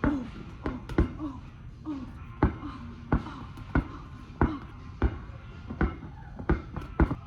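A ball, most likely a basketball, being bounced over and over, about one bounce every two-thirds of a second, each hit with a short ringing ping.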